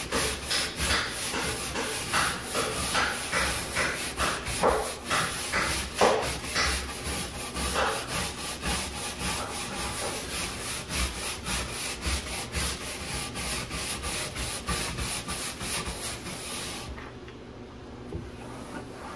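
Stiff-bristled brush scrubbing adhesive remover into a non-skid boat deck to loosen spray-adhesive residue, in rhythmic back-and-forth strokes of about two a second. The scrubbing stops near the end.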